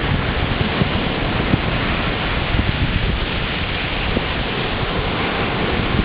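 Small sea waves breaking and washing up a sandy beach in a steady rush, with a low rumble of wind on the microphone.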